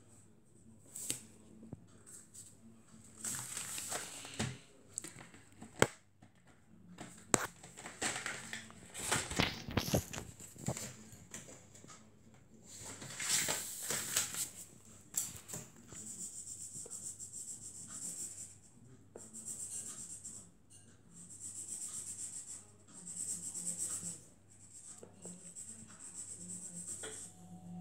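Felt-tip markers being handled, with sharp clicks and knocks and some rustling, then a black felt-tip marker scratching across paper in a run of strokes about a second each in the second half.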